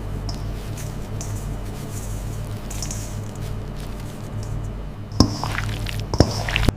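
Steady low machinery hum with scattered soft, wet clicks and squishing, and two sharp knocks, about five and six seconds in.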